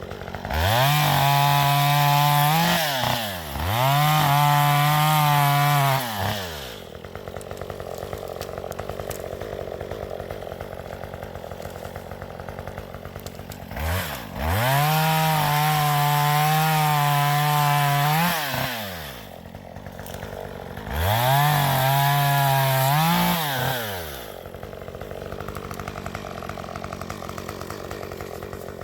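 Two-stroke chainsaw cutting up a fallen tree, revved to full throttle four times for a few seconds each and dropping back to idle between cuts.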